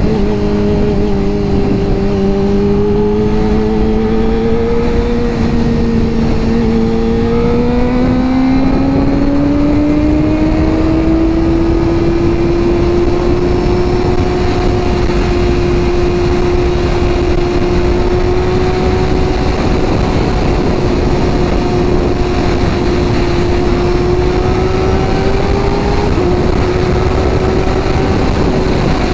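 Kawasaki ZX-25R's 250 cc inline-four engine pulling steadily in gear. Its pitch climbs slowly over the first dozen seconds, then holds even at a cruise, with a slight rise and dip near the end, over a constant rush of wind and road noise.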